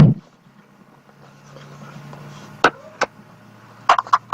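Camcorder box and its packaging being handled while unpacking: a loud knock at the start, then scattered sharp clicks, over a low steady hum.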